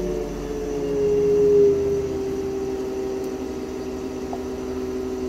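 Cummins diesel engine of a Trackmobile railcar mover running at idle, dropping back from its raised regeneration idle of about 1000 rpm to about 900 rpm as the DPF regeneration is stopped. It is briefly louder about a second and a half in, then runs steadily.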